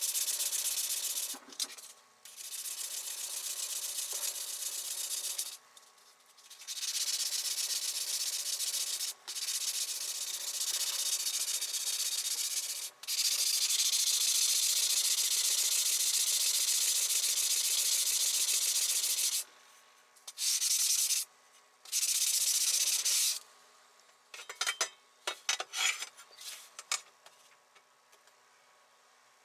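Hand sanding with abrasive paper: runs of steady, scratchy rubbing a few seconds long, broken by short gaps, then a few brief scrapes near the end.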